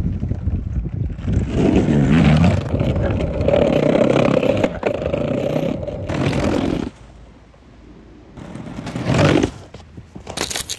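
Globe Big Blazer cruiser skateboard's wheels rolling over brick pavers: a steady rumble with a few clacks, cutting off suddenly about seven seconds in. A shorter roll swells up near nine seconds, and a few sharp knocks come near the end.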